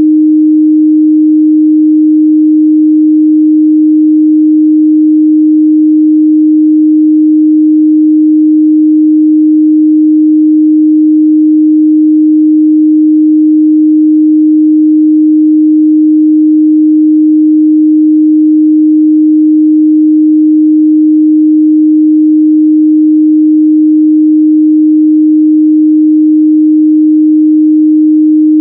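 A steady, loud 308 Hz sine-wave test tone, a single unchanging pitch, as used to check the mid-range response of speakers and headphones.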